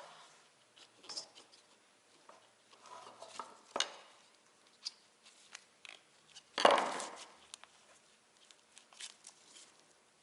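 Metal parts of a mini tire changer being handled and worked: scattered clicks and knocks, with one loud clank about two-thirds of the way through, as a tight-fitting part is forced.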